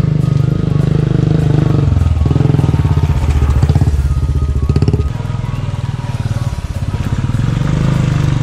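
Royal Enfield motorcycle engine running close by with a fast, even exhaust beat; its note steps up about two seconds in and drops back about five seconds in.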